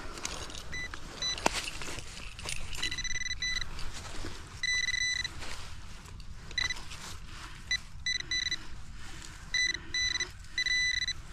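Digging tool scraping and chopping into leafy soil, then a metal-detecting pinpointer sounding in short on-off spells of a steady high beep as it is probed into the hole over a buried metal target.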